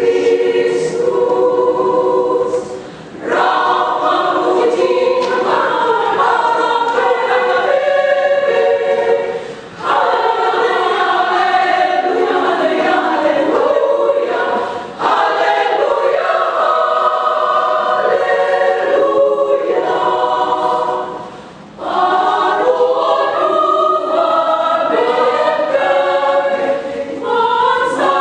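A women's choir singing in parts, in sustained phrases broken by short pauses for breath every five or six seconds.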